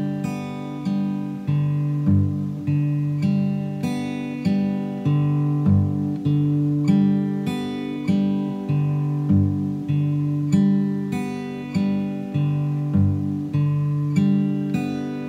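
Steel-string acoustic guitar fingerpicked slowly, one string at a time, on a one-fingered G chord. A six-note waltz pattern that starts on a low bass note and runs up the strings and back repeats about every three and a half seconds.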